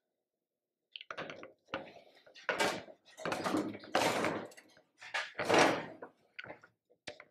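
Floor jack and car body metal scraping and clunking in a run of short, irregular bursts as the jack under the body is worked.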